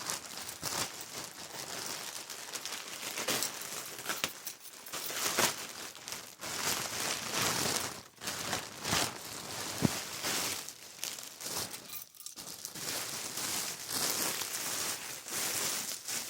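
Gift packaging crinkling and tearing as a present is unwrapped by hand. It goes on as a steady irregular crackle, with sharp rips and clicks.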